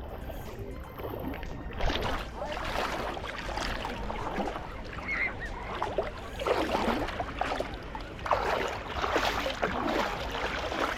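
Small sea waves breaking and washing up the sand shore, in several swells a few seconds apart.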